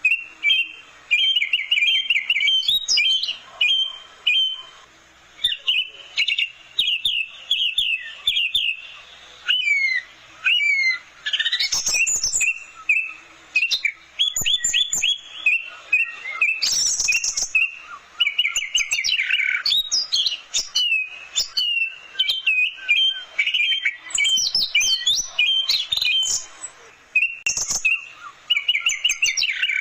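Orange-headed thrush (anis merah) singing a long run of rapid, varied phrases of high chirps and quick trills, in bursts separated by short pauses.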